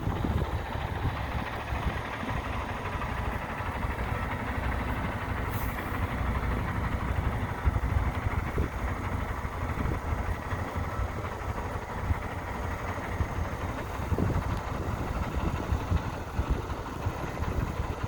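A Kenworth W900L's Cummins X15 diesel engine idling steadily, with wind buffeting the microphone.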